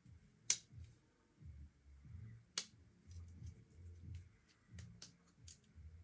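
Sharp snapping clicks of a Victorinox Explorer Swiss Army knife being handled, its tools snapping open and shut: two loud snaps about two seconds apart, then a run of lighter ticks, over soft handling bumps.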